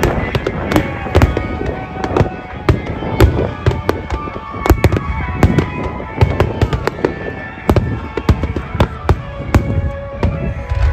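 Aerial firework shells bursting in quick succession, a dense barrage of sharp bangs and crackle, several a second, with no pause.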